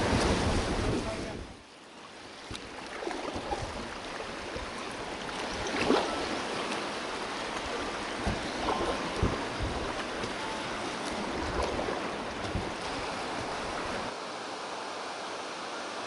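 Whitewater splashing against an inflatable raft, with wind buffeting the microphone, cut off suddenly about a second and a half in. After that comes the steady rush of a river running over rapids, with a few brief knocks.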